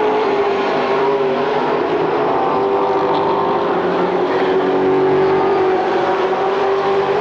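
Several late model stock cars' V8 engines running together at race speed: a steady, loud drone of overlapping engine notes that waver slightly as the pack goes around the track.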